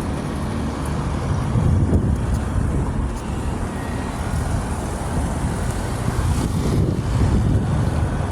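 Low, fluctuating outdoor rumble with no distinct pitch, swelling about two seconds in and again near the end.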